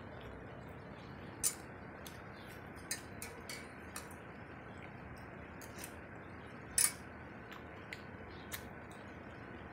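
Eating sounds: scattered sharp clicks and taps, about nine in all, the loudest about seven seconds in, over a faint steady hiss.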